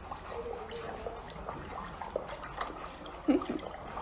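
A horse lapping water from a plastic bucket with its tongue, the way a dog drinks: an uneven run of small wet slurps and drips.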